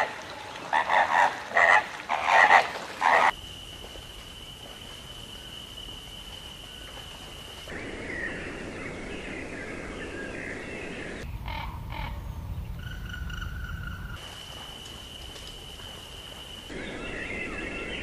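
A spliced sequence of wild animal sounds: a rapid series of loud short calls in the first three seconds, then a steady high-pitched tone, then birds chirping. The clips change abruptly several times, with the steady high tone returning before more chirping near the end.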